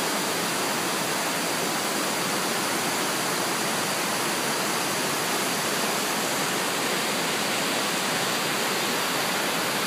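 A waterfall: river water pouring over wide rock ledges in a steady, even rush.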